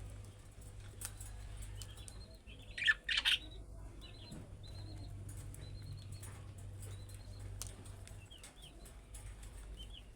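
Budgerigars chirping in short, quick calls, with the loudest chirps about three seconds in, over a steady low hum and scattered small clicks.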